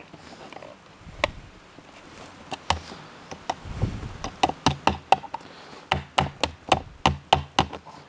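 Pliers clicking and knocking against a black plastic pot's rim as a stake is clamped onto it: irregular sharp clicks, sparse at first and then about two or three a second from about halfway.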